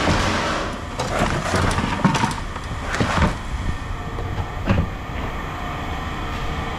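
Pieces of scrap metal clanking and scraping as they are thrown down, a handful of irregular strikes with short metallic squeals, over a steady low engine hum.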